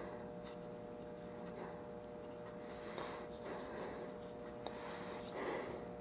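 Quiet handling noises from a broken plastic turn signal stalk being turned over in the hand: soft rubbing and scraping, with one small click about two-thirds of the way in, over a faint steady hum.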